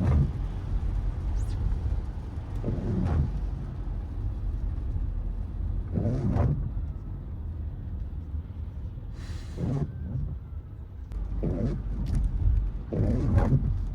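Windscreen wipers of a 2024 Mercedes-Benz GLE squeaking across the glass on each sweep, about every two to three seconds, over the low rumble of the car driving. It is a recurring wiper squeal that repeated workshop repairs have not cured.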